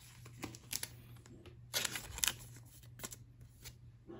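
Pokémon trading cards being handled and set down: light rustles and taps in a few short strokes, with a cluster of them about two seconds in.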